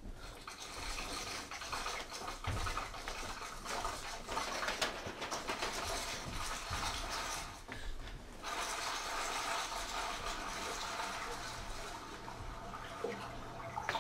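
Experimental live percussion: continuous scraping and rubbing on drums and objects, a dense scratchy texture full of small clicks that thins out briefly about eight seconds in.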